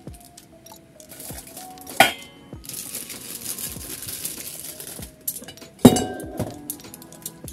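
Utensils clinking against the metal inner pot of an electric rice cooker, two sharp ringing knocks about two seconds and six seconds in, with a plastic seasoning sachet rustling as it is squeezed out between them.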